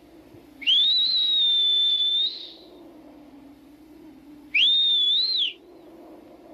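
Two loud, clear whistles. The first rises and is held for about a second and a half. The second, about four seconds in, is shorter; it rises, dips and falls away.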